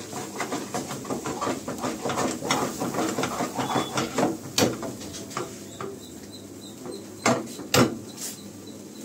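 Steel ladle scraping and clinking against a steel pan as thick paneer gravy is stirred over a gas flame, with a quick run of scrapes and knocks, then two louder sharp knocks about seven seconds in.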